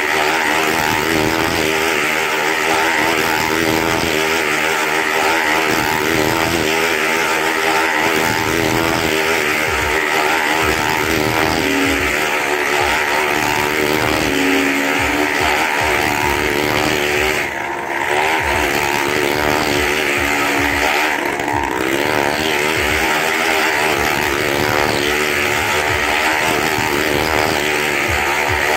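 Motorcycle engine running hard as it laps the wooden wall of a well of death. It is loud and continuous, its pitch wavering up and down over and over as the bike circles.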